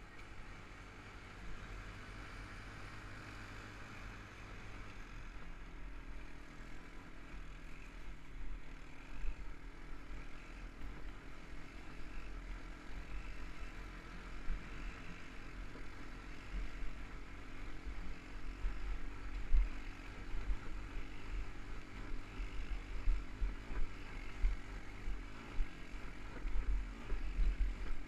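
ATV engine running as the quad rides up a rough, rutted dirt trail, with uneven thumps and low rumble that come more often in the second half.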